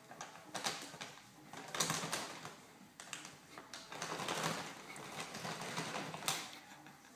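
Clear plastic bag of hay crinkling and rustling as a rabbit climbs and scrabbles on it, in irregular bursts with sharp crackles. It is loudest about two seconds in and again from about four to six seconds in, with one sharp crack near the end.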